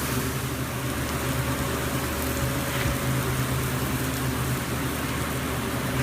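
Pork burger patty sizzling on the heat, an even hiss over a steady low hum.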